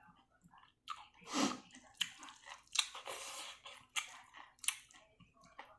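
A person chewing and eating close to the microphone: irregular wet mouth sounds and short crunchy bursts, starting about a second in.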